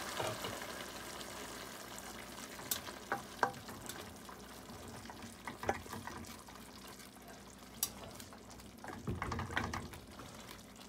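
Salted fish, onions and peppers sizzling in a metal pan while a wooden spoon stirs them, with a few sharp knocks of the spoon against the pan and a cluster of clatter near the end. The sizzle fades steadily.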